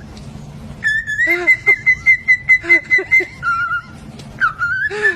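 Parrot whistling: a long, high held whistle with a slight warble that starts about a second in, then a short lower note, then another held whistle near the end, with quick rhythmic lower sounds underneath.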